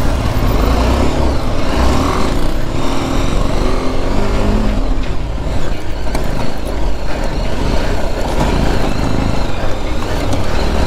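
Motorcycle engine running while being ridden, with a heavy low rumble of wind noise on the microphone.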